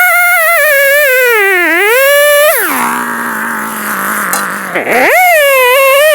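Stihl MS290 two-stroke chainsaw engine, running on an aftermarket replacement carburetor. It runs at high revs that wander up and down, drops sharply to a steady idle about two and a half seconds in, then revs back up near five seconds. The owner feels it still isn't running quite right.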